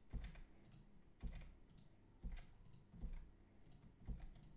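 Computer mouse and keyboard clicks: a series of sharp single clicks, one every half second or so, as shapes are clicked and deleted one after another.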